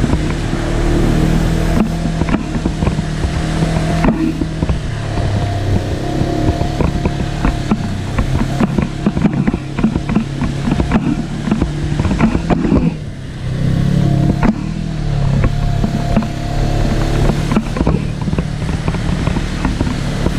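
Side-by-side UTV engine running while driving through a shallow rocky creek, its pitch stepping up and down as the throttle changes, with many clattering knocks from the chassis and wheels over rocks. The engine eases off briefly about two-thirds of the way through, then picks up again.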